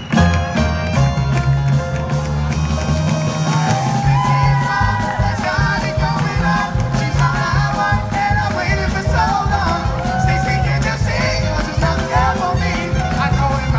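Live band playing with an upright bass, with a voice singing over the music from about four seconds in.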